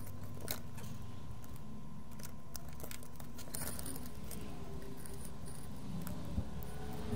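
Small, light clicks and rattles of hands and a metal multimeter probe handling an opened headphone earcup, its circuit board and wires. A steady low hum runs underneath.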